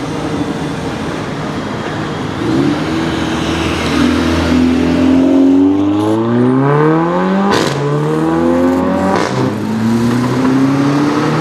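Mercedes-AMG A45 Edition 1's turbocharged four-cylinder, on a custom exhaust, accelerating hard. The engine note climbs from about four seconds in. A sharp crack comes from the exhaust as it shifts up, dropping the pitch, and a second crack follows about a second and a half later before the note climbs again.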